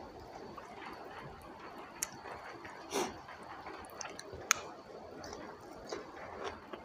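Close-miked chewing and wet mouth sounds of a person eating rice and raw coriander leaves by hand, with a few sharp clicks along the way, the sharpest about four and a half seconds in.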